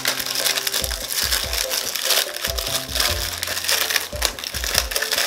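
Foil-lined biscuit wrapper crinkling and crackling as it is torn open by hand, over background music.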